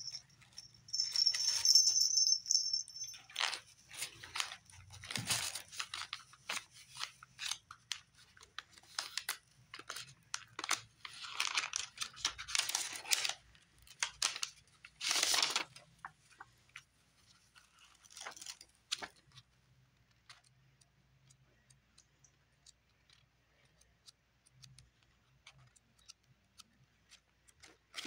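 Tissue paper and paper packaging rustling and crinkling as kit items are handled and unwrapped, in uneven bursts with short pauses. A high ringing tone about a second or two in is the loudest sound, and the last several seconds hold only faint handling clicks.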